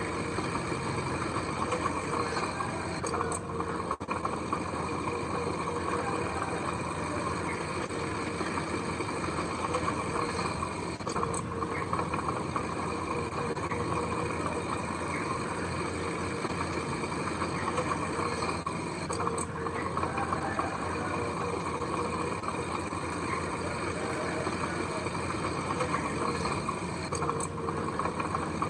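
Heavy construction-machine diesel engine running steadily, with no clear revving or stopping.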